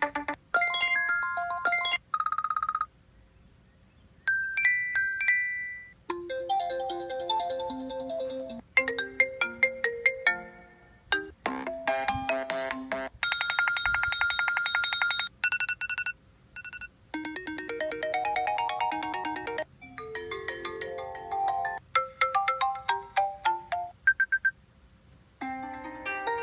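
iPhone ringtones playing: a series of short electronic melodies, the tune and timbre changing every few seconds, with brief gaps or sudden cut-offs between them.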